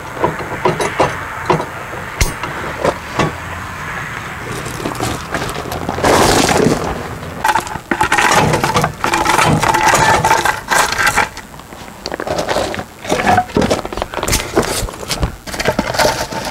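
Irregular metal clanks, clicks and scraping from hands-on work on a fifth-wheel camper's manual landing gear, with no steady machine running.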